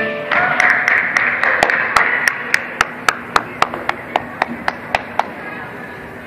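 Spectators clapping and cheering as the floor music ends. One pair of hands claps close by, about four times a second, and the clapping stops about five seconds in.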